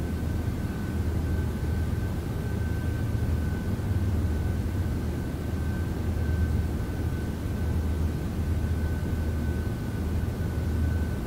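Steady low hum and rumble with a faint, thin, steady high tone above it, unchanging throughout.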